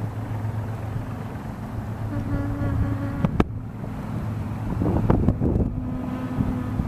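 Wind buffeting the microphone over a steady low drone, gusting harder about five seconds in. A buzzing hum comes in twice, and there is a sharp click a little past three seconds.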